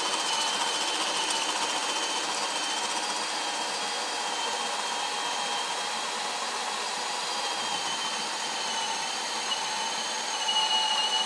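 Hilti cordless hammer drill in drill mode at speed 1, driving a spade bit into a thick wooden beam; the motor runs with a steady whine under load, getting a little louder near the end.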